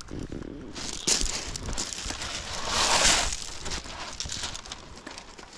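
Footsteps crunching and scuffing over beach rocks, with a sharp crunch about a second in and a louder rush of noise around three seconds in.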